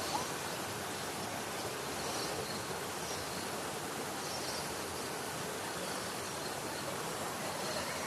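Waterfall rushing, a steady even hiss of falling water.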